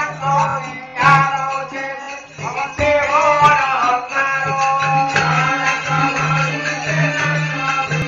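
Live traditional folk-theatre music, loud and continuous, with a melody line that bends up and down over a steady low hum, recorded through a low-quality phone microphone.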